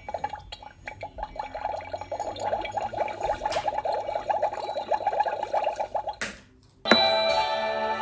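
Bubbling, gurgling sound effect of a magic cauldron, a fast steady run of bubbles. It stops about six seconds in, and after a short pause a loud magical music sting with chimes starts suddenly.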